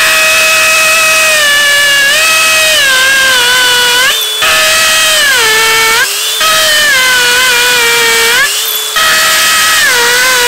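DeWalt DCD996 brushless hammer drill boring into a concrete block with a masonry bit, its motor whine sagging in pitch as it bears down under load. It stops briefly three times, about four, six and eight and a half seconds in, and restarts each time.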